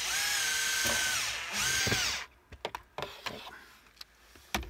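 Cordless drill-driver driving a screw in: the motor runs steadily for about a second and a half, stops briefly, then runs again for about half a second. Scattered clicks and knocks follow, with one sharp knock near the end.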